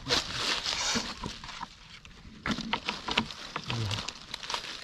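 Water splashing, then a run of sharp clicks and knocks starting about halfway through.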